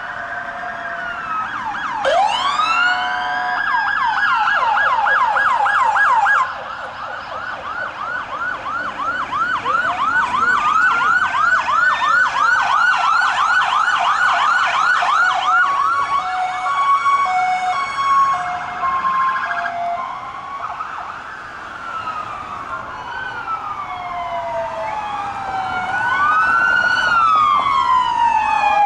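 Several police car sirens sounding at once as squad cars pass, overlapping wails that rise and fall slowly with a fast repeating yelp through much of the first half. In the middle a two-tone hi-lo pattern joins in, and slow wails sweep up and down near the end.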